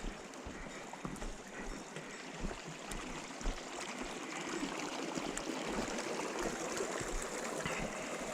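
Steady rushing noise of wind in a snowstorm, with uneven low rumbles of gusts buffeting the microphone.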